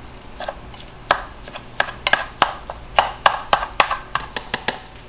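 Spatula chopping raw ground beef into small pieces in a frying pan, knocking against the pan: an irregular run of sharp clicks starting about a second in.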